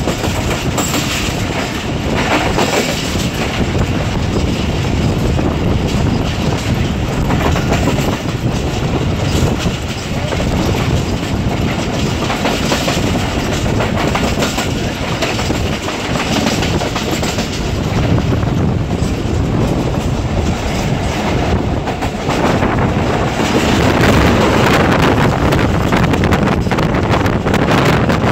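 Track sounds of a passenger train at speed: the coach wheels running over the rails with a continuous clatter. It grows louder about 23 seconds in.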